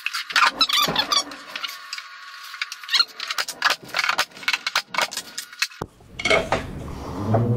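Pneumatic brad nailer firing a rapid series of sharp shots, nailing baseboard trim to a plywood cabinet base, with a few squeaks in the first second. The shots stop just before six seconds in.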